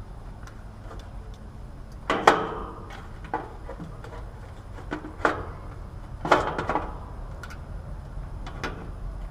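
Sharp clicks and knocks of metal parts being handled while a replacement 40/5 run capacitor is fitted and secured in an air conditioner's electrical compartment: three louder knocks about two, five and six seconds in, lighter clicks between, over a steady low rumble.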